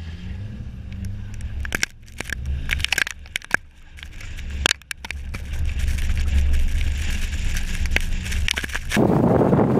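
Mini Countryman S ALL4 driving through deep snow on lake ice: a low engine and road rumble with crunching and many sharp crackles of snow and ice against the wheel and body. About nine seconds in it changes suddenly to loud wind noise on the microphone.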